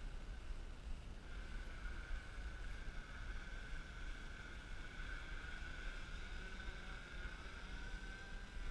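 REPTILE500 quadcopter flying overhead, its motors and propellers giving a steady high whine that comes in about a second in and wavers slightly in pitch. A low rumble runs underneath.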